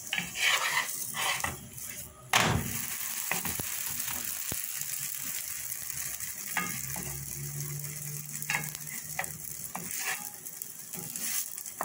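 Poppy-seed gözleme flatbread sizzling steadily in a non-stick frying pan, with a wooden spatula knocking and scraping against the pan several times; the sharpest knock comes about two seconds in.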